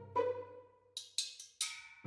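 Background music: a struck melodic note ringing out and fading, then three short sharp percussive hits in the second half.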